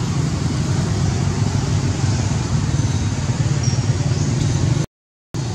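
Steady low rumbling noise, broken by a half-second gap of silence near the end.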